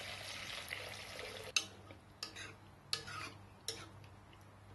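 Water pouring into a non-stick kadai of raw papaya slices, stopping about a second and a half in, then a steel spoon stirring the pan and clinking against it five or six times.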